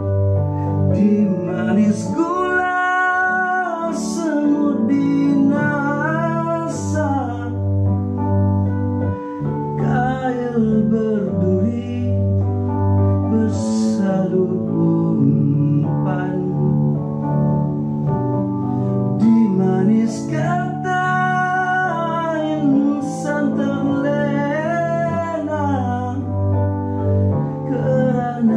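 Slow Malay ballad on an electronic keyboard: sustained low chords under a melody line that rises, falls and wavers in long phrases.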